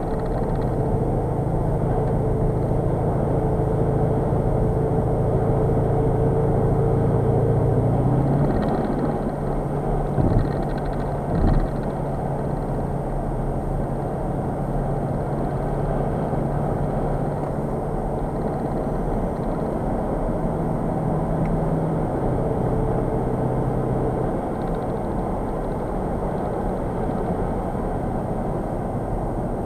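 In-cabin sound of a Skoda Octavia RS 4x4's 2.0 TDI diesel engine cruising steadily, under a constant rush of tyre and road noise. The engine note changes about eight seconds in, and two short thumps come a couple of seconds later.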